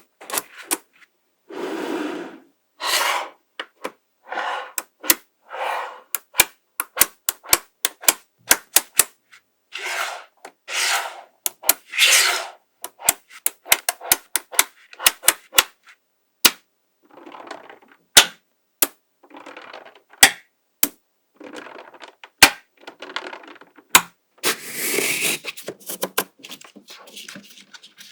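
Small magnetic balls clicking sharply as they snap together, at irregular intervals. Between the clicks come short rattling, rubbing stretches of about half a second as strings of balls are rolled and worked into shape.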